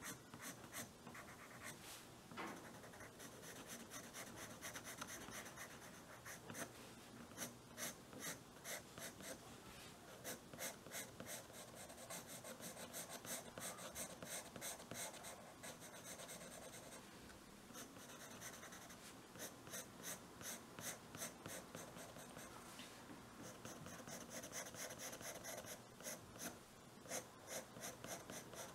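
A soft graphite drawing pencil scratching on drawing paper: faint runs of quick back-and-forth shading strokes, broken by short pauses.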